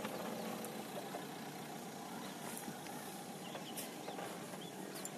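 Renault Duster AWD's diesel engine running steadily and faintly as the SUV crawls along a sandy off-road track.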